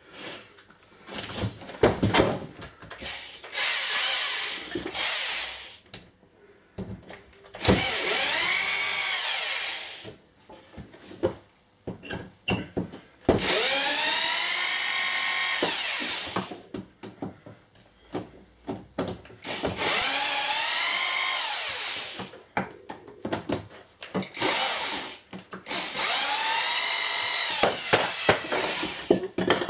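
Power drill running in about five bursts of two to three seconds each, its motor whining up to speed at the start of every run as it works screws in the workshop wall. Short knocks and clicks come between the runs.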